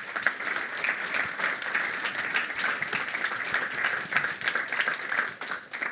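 Audience applauding, many hands clapping at once, tapering off near the end.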